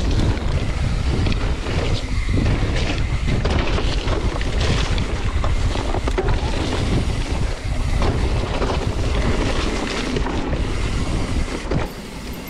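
Wind buffeting the camera microphone while a Propain Tyee mountain bike rolls fast down a wet, slippery dirt trail, with tyre noise and frequent small knocks as the bike goes over bumps.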